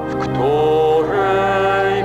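A slow church hymn sung in long, drawn-out notes. Each note is held, and the pitch moves to the next one with a short upward slide.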